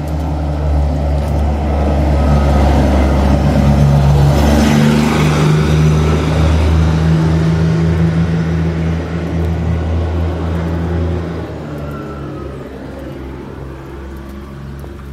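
A low-revving engine running close by, growing louder over the first few seconds and then fading away after about eleven seconds.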